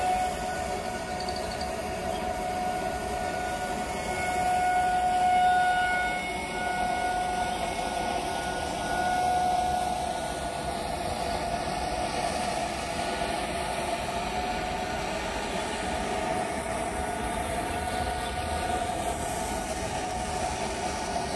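Outdoor tornado warning siren sounding one long steady tone, swelling louder about five seconds in and again near ten seconds.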